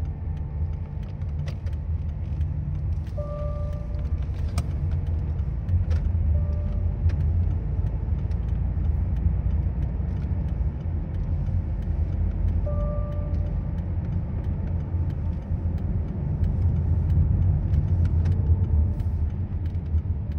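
Steady low rumble of engine and road noise heard from inside a moving car's cabin, with a few brief faint two-note tones now and then.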